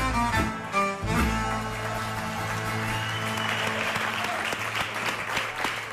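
Violin with band accompaniment playing the last notes of an Arvanitic folk dance tune, which end about a second in, then an audience applauding, the clapping building up from about the middle.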